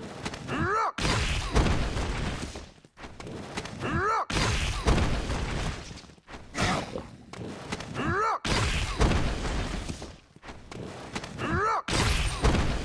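Edited back-cracking sound effects: a short gliding voice cry followed by a loud crunching thud, the same clip repeated about four times, roughly every three and a half seconds.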